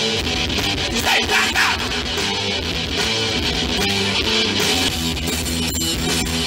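Rock band playing loud and continuously with no vocals: electric guitar and bass over drums with crashing cymbals.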